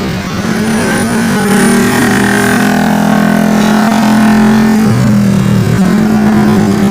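Motor vehicle engine running steadily, its pitch dropping for about a second near the end and then returning.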